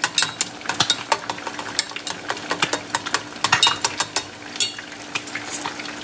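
Whole fish frying in oil in a skillet, crackling with many irregular pops, mixed with a utensil stirring and clinking in a stainless saucepan of simmering tomato sauce. A steady low hum runs underneath.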